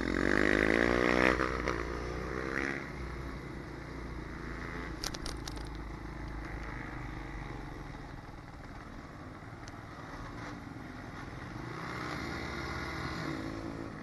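Malcor Super Racer 190 pit bike's engine revving hard for about a second, its pitch rising, then dropping back to a low steady run as the bike rolls slowly. A few sharp clicks come about five seconds in.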